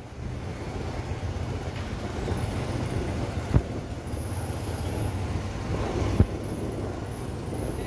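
Small motorcycle running at low speed, a steady engine hum with road and wind noise, and two sharp knocks partway through.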